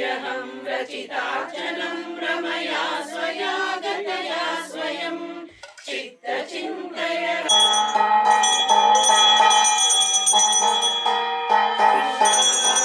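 A group of women chanting a Sanskrit devotional hymn together. About halfway through, a brass puja hand bell starts ringing continuously for the lamp-waving aarti, and it is louder than the voices.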